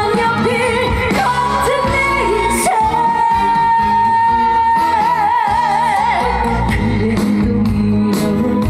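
Female trot singer singing live over a steady accompaniment, holding one long note in the middle that ends in a wide vibrato.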